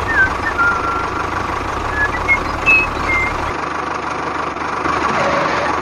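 Small battery-powered gear motor of a homemade toy tractor running steadily, a gritty whirr with a thin high whine, as it tows a loaded toy trailer over sand. A few short high chirps come over it.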